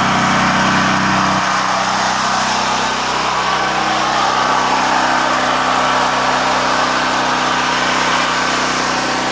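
Small portable generator engine running steadily under load, powering the house through a heavy cable. A deeper low hum drops away about a second and a half in while the engine note carries on.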